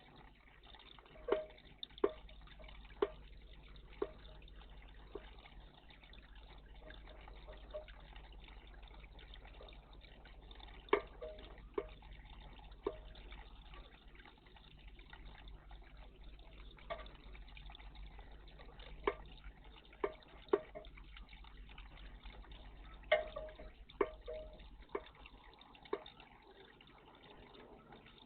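Water in a garden bird bath dripping and splashing: about twenty short, sharp drips or splashes in irregular clusters, over a faint steady water and hum background.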